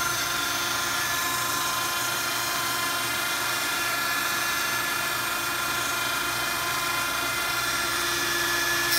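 Dremel rotary tool running steadily at high speed, spinning an ABS plastic rod against the seam of two ABS pieces to friction-stir weld them together. A constant high whine with no change in speed.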